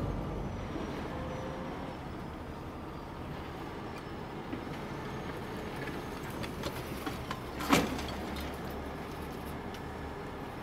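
Low steady engine rumble, with a few light clicks and one sharp knock about eight seconds in.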